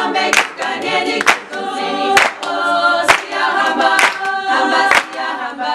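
Small female choir singing an upbeat song a cappella in harmony, with sharp hand claps keeping the beat roughly once a second.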